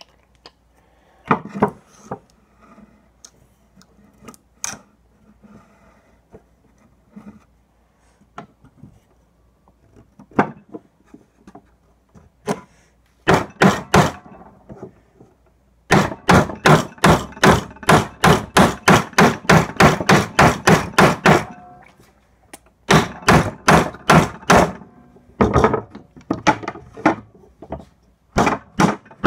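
Small hammer striking a wooden piece: a few separate knocks, then a fast, even run of blows at about four a second for several seconds, followed by more short runs.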